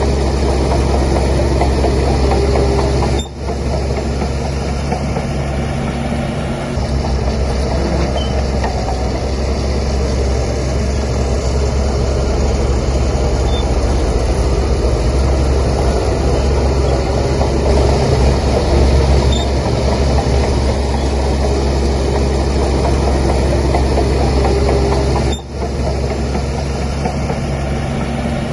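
Heavy diesel engine of a bulldozer running steadily while working, with two brief dips in the sound.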